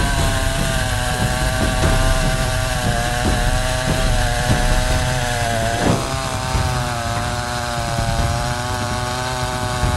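Sadko GCS-510E two-stroke petrol chainsaw running at high revs, its pitch wavering slightly. About six seconds in, the revs dip sharply and climb straight back.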